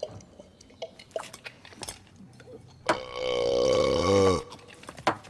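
A man belches, one long, loud burp of about a second and a half that starts about three seconds in and drops in pitch as it ends.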